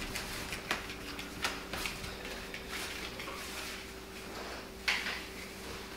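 A few light knocks and rustles as a person moves about and sits down in a wicker chair with a laptop. The loudest knock comes near the end, over a steady low hum.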